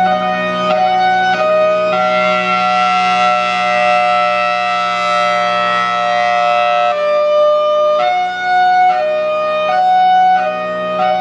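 Federal Signal Thunderbolt 1003 outdoor warning siren sounding its hi-lo alert, very loud. Two pitches alternate about every 0.7 s, give way to one held chord for about five seconds in the middle, then alternate again, over a steady low drone.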